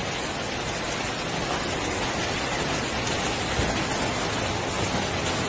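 Steady, even hiss of heavy rain and rushing floodwater in a flooded street.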